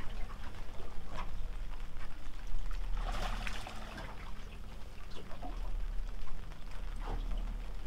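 Water lapping and splashing against a small boat's hull, with a few louder splashes about one, three and seven seconds in, over a steady low rumble.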